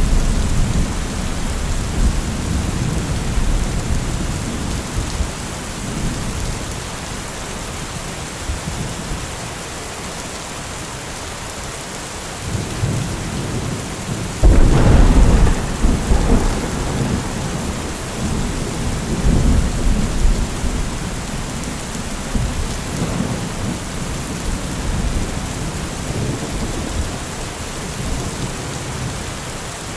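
Thunderstorm: steady heavy rain with low rolling thunder. About halfway through, a sudden loud thunderclap is followed by several seconds of rumbling, and a smaller roll comes later.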